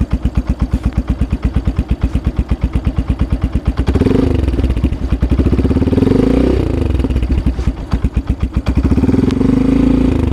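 Yamaha FZS V3's single-cylinder engine running through an aftermarket Akrapovic slip-on exhaust, catalytic converter removed. The dB killer is fitted without its back cap, which is the medium-loudness setting. It idles with a steady pulsing beat, then is revved up and back down twice, about four seconds in and again near the end.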